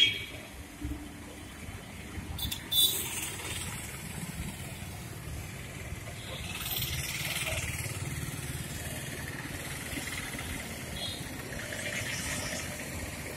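Street traffic below: motorcycles and auto-rickshaws running and passing in a steady rumble, with a brief louder sound about three seconds in.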